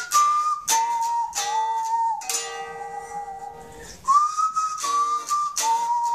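Steinberger-style headless electric guitar playing a tune: short, rhythmic chord strokes under a high, sustained melody line that holds each note and slides up into a new one about four seconds in.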